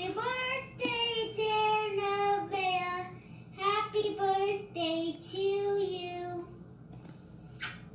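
A young child singing a song in held notes, heard through a television's speakers; the singing stops a little after six seconds in, followed by a short click.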